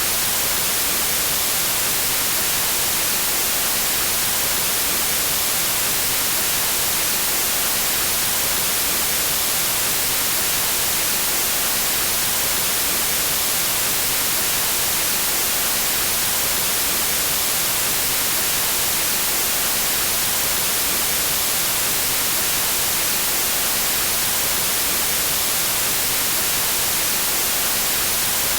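Synthetic white noise: a steady, even hiss, loudest in the high end, with no change throughout.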